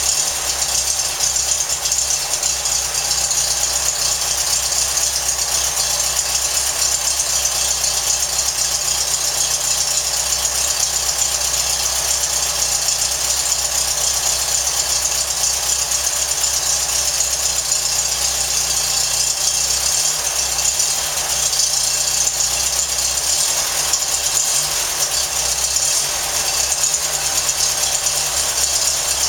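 Air-cooled 1914cc VW flat-four buggy engine running steadily on a test stand, exhausting through a chrome header and muffler.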